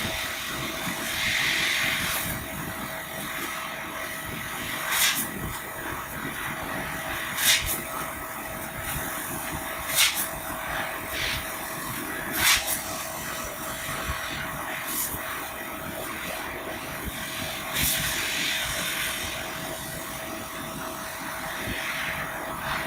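EFC3015 laser cutting machine cutting 2 mm aluminium sheet: a steady hiss and hum, with short sharp clicks roughly every two and a half seconds.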